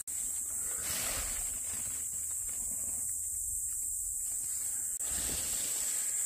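Insects chirring in a steady high chorus, with soft rustles of handling in dry leaf litter about a second in and again near the end.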